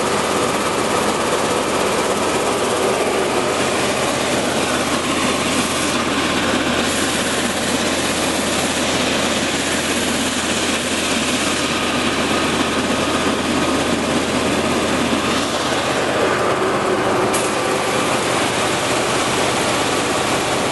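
A 5XZD-15AC grain cleaner and grader running steadily: an even, noisy rattle of grain moving over and falling from its screen deck, over a steady low machine hum.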